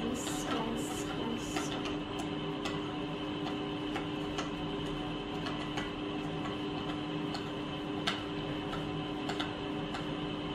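A spoon stirring butter and sugar in a glass bowl: light, irregular clicks of the spoon against the glass, with a few scraping strokes near the start. A steady hum runs underneath.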